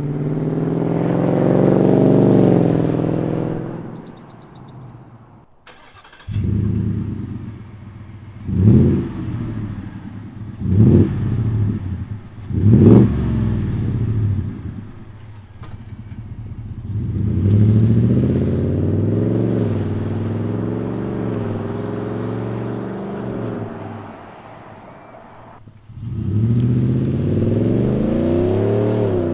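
2021 Ford F-150 engine running through an MBRP 3-inch cat-back exhaust. It accelerates with a rising engine note, is revved sharply three times about 9, 11 and 13 seconds in, then pulls away again with a rising note. The sound breaks off abruptly twice between takes.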